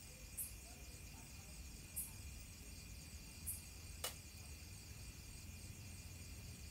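Crickets and other insects chirring steadily, with a short high buzzing call repeating about every second and a half. There is a single sharp click about four seconds in.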